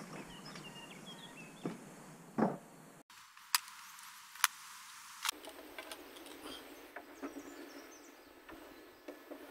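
Quiet outdoor background with small birds chirping and a handful of sharp, isolated knocks. The background changes abruptly twice, about three and five seconds in.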